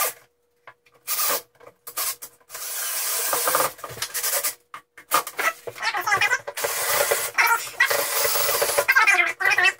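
Screws being driven into the wooden edge of a door to fasten a door knob's latch: a few short bursts, then a longer stretch of continuous rasping as the screws bite into the wood.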